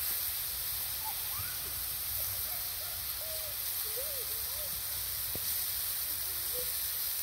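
Tomatoes and sweet peppers sizzling on a fire-heated flat stone: a steady high hiss, with faint voices in the background.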